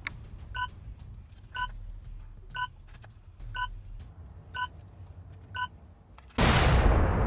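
Time-bomb sound effect: a short electronic countdown beep once a second, six times, then a sudden loud explosion near the end that begins to die away.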